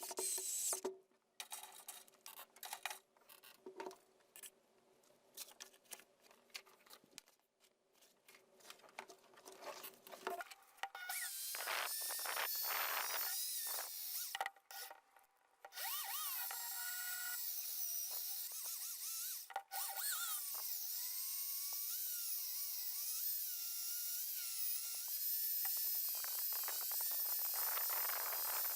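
Scattered clicks and knocks of parts being handled, then from about eleven seconds in a small power tool running steadily with a high, wavering whine, briefly stopping a couple of times.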